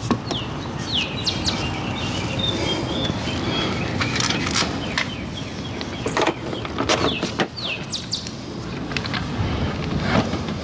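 Birds chirping in short falling calls a few times over a steady background noise, with scattered knocks and clicks of handling.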